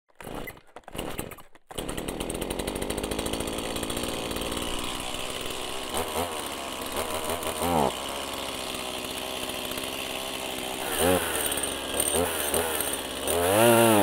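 Chainsaw engine sputtering in a few short bursts, then running steadily and being revved up and back down several times.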